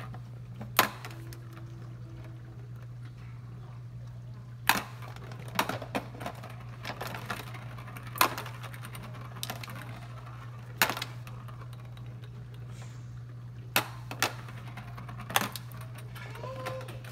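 A kitten batting a ball around the clear plastic track of a Petstages Nature Track cat toy: about ten sharp plastic clacks at irregular intervals, over a steady low hum.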